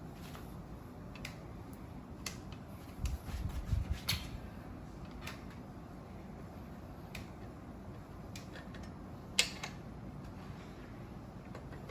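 Scattered light clicks and taps of hands and tools working on a folding bike's headset. There is a brief low knocking about three seconds in and one sharper click about nine and a half seconds in.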